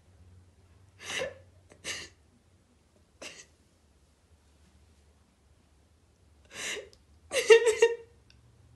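A woman's breathy gasps: five short breaths, the last longer and louder, with a little voice in it.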